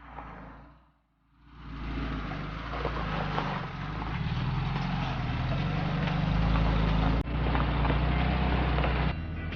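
Off-road 4x4's engine running at low speed, its pitch rising and falling as the throttle changes; it fades in after a quiet start and breaks off abruptly about seven seconds in.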